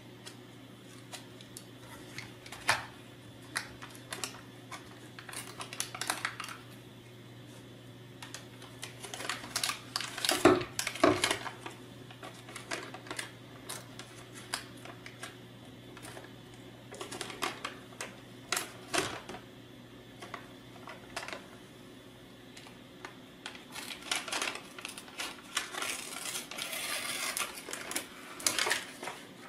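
Protective paper being peeled by hand off a black plastic deck plate: intermittent crinkling and tearing of the paper, with scattered light taps and clicks as the plate is handled, over a faint steady hum.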